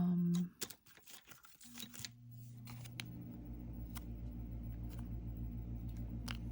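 Small clicks and rustles of nail polish strip packets being handled and sorted. A low, steady hum of a motor or appliance starts about two seconds in and runs on with a slight pulsing.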